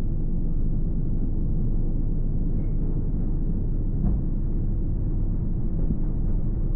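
Car driving at steady speed: a low engine and road-noise rumble with a steady hum, and a faint knock about four seconds in.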